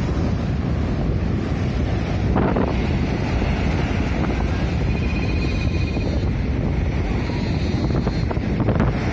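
Surf breaking and washing up the beach, with strong wind buffeting the microphone in a steady low rumble.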